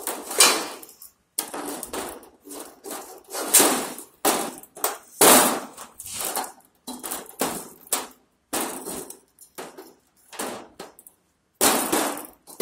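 Steel tubing of a cart corral clanking metal on metal, over and over at an uneven pace of roughly two knocks a second, as a tube leg is worked down over its tie-bar post.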